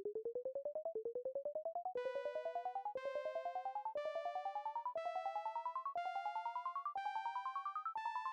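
Synthesized alarm sound from a Sonic Pi alarm clock program: a fast-pulsing electronic tone, about a dozen pulses a second, that sweeps upward over each second, each sweep starting a little higher. About two seconds in, a held buzzy tone joins and steps up in pitch every second.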